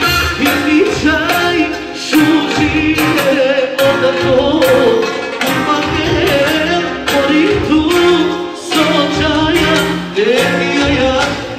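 Loud Balkan dance music with a singer: an ornamented, wavering melody over a steady driving beat.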